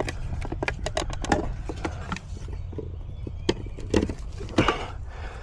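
Irregular clicks and knocks of a refrigerant vacuum pump being handled while its oil is checked, over a steady low hum.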